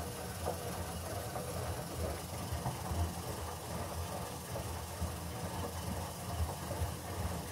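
Gorenje SensoCare washing machine running, a steady low rumble that swells unevenly; a noise the owner finds weird and suspects is a fault.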